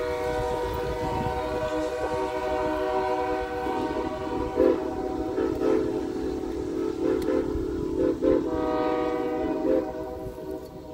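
Locomotive whistle blowing one long, chord-like blast that stops about ten seconds in. About four seconds in, a lower, wavering tone joins it and swells several times.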